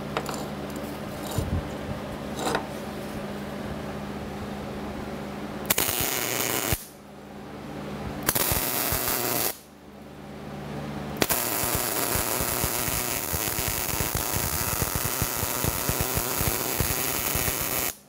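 MIG welding mild steel: two short tack welds about six and eight seconds in, then a continuous weld bead with a steady crackle for the last seven seconds, stopping abruptly at the end.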